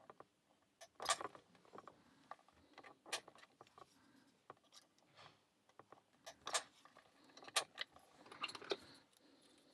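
Scattered small metallic clicks and taps of a lock pick and tension tool working the pin in a Master Lock 130 padlock. A few louder clicks stand out about a second in, around three seconds in, and twice between six and eight seconds.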